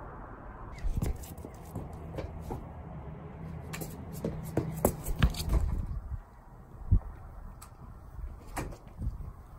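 A string of sharp knocks and quick footsteps at a front door, densest in the first half, with a few single knocks near the end, over a low rumble.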